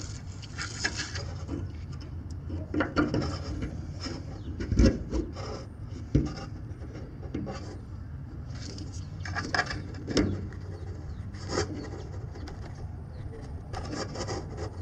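Hands handling a fuel pump's plastic wiring connector and hose at the tank access hole: irregular small knocks, clicks and rubbing, close to the microphone.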